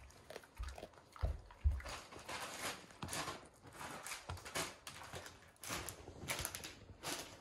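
Akita dog chewing and gnawing a hard dried treat stick, irregular crunching with a few low thumps.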